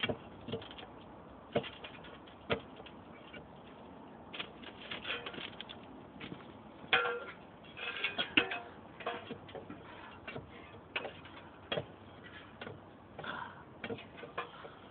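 Irregular scrapes and clinks of steel shovels and a steel bar working in track ballast and against the rails, with a few louder ringing metal knocks about seven and eight seconds in.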